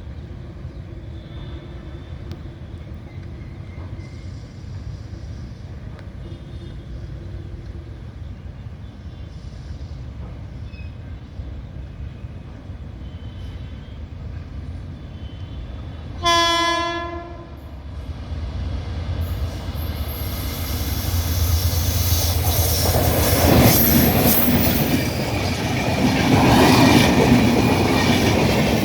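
Indian Railways SMVT Duronto Express approaching with a low rumble; its locomotive sounds one horn blast a little over halfway through. The train then passes at speed, the rumble and wheel clatter growing loud.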